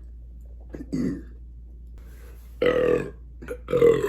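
A man belching up the carbonation from beer he has drunk. A small burp comes about a second in, then two loud, deep belches about half a second apart near the end.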